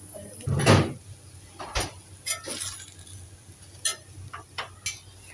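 A steel spatula knocking and scraping on a tawa (griddle) as a paratha is pressed and turned. There is one louder scrape about half a second in, then a handful of sharp metallic clinks.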